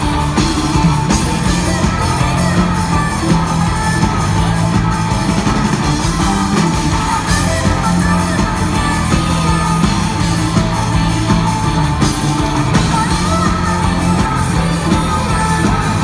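Live concert music heard from the audience: a band with keyboards and drums plays an upbeat pop-rock song under synthesized Vocaloid singing voices, with the crowd yelling and cheering along.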